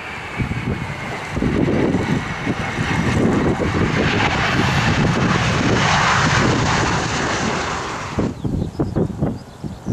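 Jet airliner's engines passing close by: a high whine slides down in pitch over the first few seconds while the engine noise swells to its loudest about six seconds in, then cuts off abruptly near the end. Wind buffets the microphone throughout.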